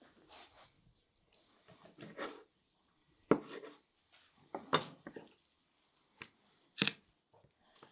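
Cleaver cutting a raw chicken on a wooden cutting board: three sharp knocks of the blade on the board, the last the loudest, between softer sounds of the raw meat being handled and pulled apart.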